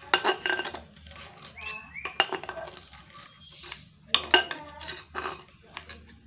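Metal scissors knocking and scraping against a ceramic slow-cooker crock as cattle-hide scraps are stirred in the hot glue liquid: irregular sharp clinks, several a second, over a faint steady low hum. A few short pitched calls sound in the background.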